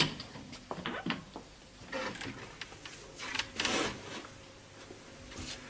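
Scattered light knocks and rustling of people moving about a room, with a longer rustle about three and a half seconds in.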